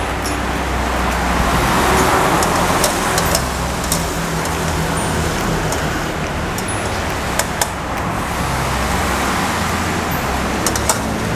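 Steady rushing hiss with a few light metallic clicks as a wire strainer scoops boiled potatoes out of an aluminium pot on a portable gas stove.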